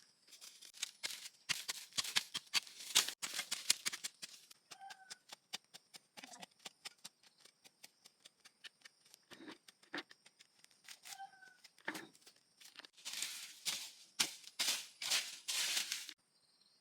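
Rustling and crackling handling noises, with stretches of louder scraping and rustling near the start and near the end, over a steady high insect trill. A short chirp comes twice.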